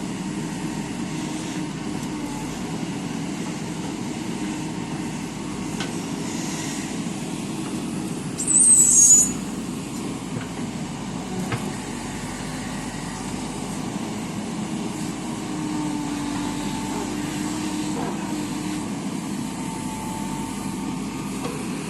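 Diesel engine of a JCB 3DX backhoe loader running steadily while it works, with one brief loud high-pitched squeal about nine seconds in.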